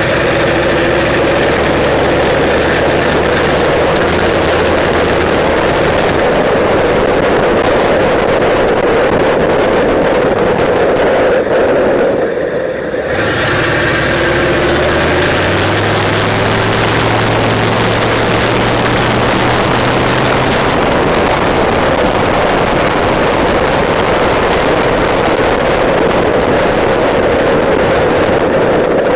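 A 6.5-litre Detroit Diesel V8 turbo diesel in a pickup, running loud and steady through a straight-pipe exhaust while driving. About twelve seconds in the sound dips briefly, then the engine comes back at a higher pitch with a faint rising turbo whistle.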